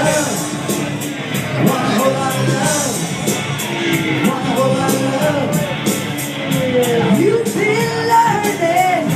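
A woman singing into a handheld microphone over music with a steady beat.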